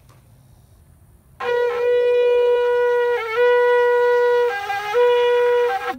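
A shofar, a long spiralled ram's-style horn, is blown in one long blast starting about a second and a half in. It holds a single bright note, wavers briefly midway, dips to a lower note near the end, returns to the first note and then cuts off.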